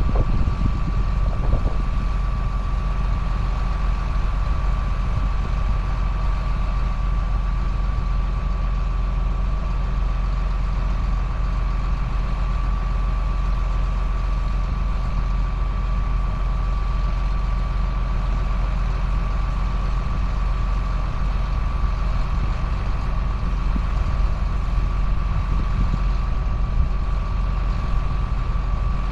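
Engine of a 2005 John Deere sprayer running steadily at an even speed: a constant low drone with a steady high whine over it.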